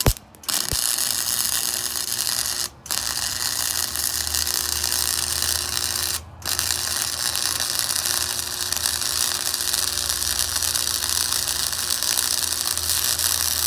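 Wire-feed (MIG-type) welder's arc running a continuous bead, a steady dense crackle, with the wire speed freshly raised. The arc breaks off twice for a moment, about three and six seconds in, and restarts at once.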